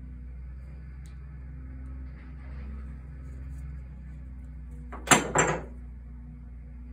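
Two sharp knocks a quarter second apart, something hard struck or set down on the metal-topped workbench, with a brief metallic ring. A steady low hum runs underneath.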